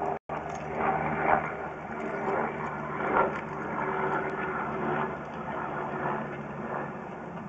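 An engine idling with a steady low hum, with irregular bits of rustling and knocking noise on top. The sound cuts out completely for a moment just after the start.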